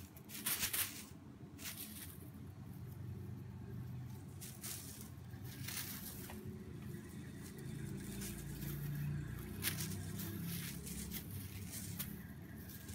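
Bengal kitten scampering on a cloth-covered table: scattered soft rustles and taps of its paws on the fabric, over a low steady room rumble.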